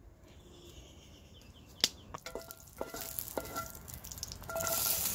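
Chopped zucchini and tomato going into a frying pan of hot oil over a wood fire, setting off sizzling that starts near the end and grows. A single sharp knock about two seconds in.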